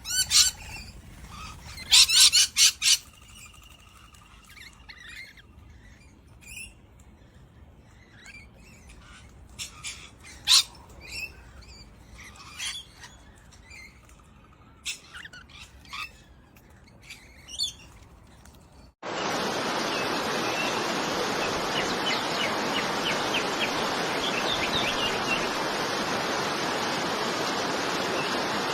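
Wild birds chirping and calling in short bursts, loudest in a quick cluster about two seconds in. About two-thirds of the way through the sound cuts abruptly to steadily rushing water, with faint birdsong above it.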